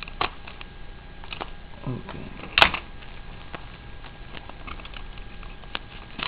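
Unpacking handling noise: bubble wrap and masking tape crinkling and ticking as they are cut and peeled from glass test tubes with a snap-off utility knife, with one sharp, loud click about two and a half seconds in.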